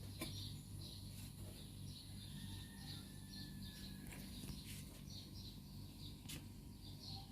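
Small birds chirping repeatedly over a low steady hum, with a couple of sharp clicks.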